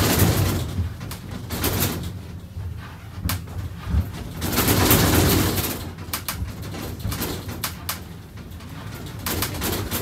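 Funicular cabin running along its track, heard from inside: a low rumble and rattle with scattered sharp clicks, swelling louder at the start and again around the middle.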